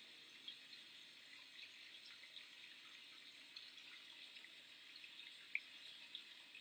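Faint scratching of a pen writing on paper, with small scattered ticks.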